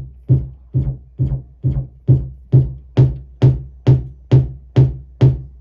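Weston Precision Audio B2 kick drum module playing a steady kick a little more than twice a second, each hit a low thump with a short decay. About three seconds in the attack of each hit turns brighter and clickier as the attack setting is dialled.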